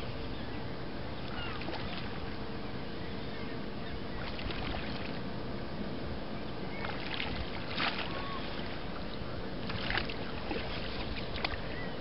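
Steady low hum of a boat motor on calm water, with a few brief sharp sounds over it.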